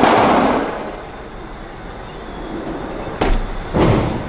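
Gunshots echoing in an indoor shooting range: one crack right at the start with a long ringing decay, then two more about three seconds in, half a second apart.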